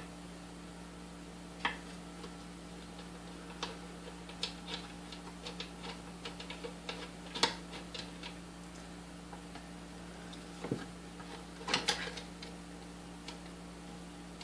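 A screwdriver clicking and scraping irregularly against metal parts inside a stand mixer's metal motor housing as the field coil is unscrewed, with a few sharper clinks, over a steady low hum.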